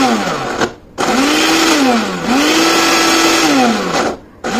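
Small personal blender (mixie) grinding onion and garlic into a paste in pulses: the motor cuts out just under a second in, runs for about three seconds, then cuts out and starts again near the end. In each run its whine climbs and then sags as the blades bog down in the onion.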